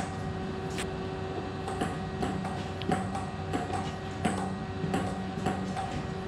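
Table tennis ball clicking off rubber paddles and bouncing on the table during rallies. The sharp clicks come irregularly, about one every half second to a second, over a steady hum.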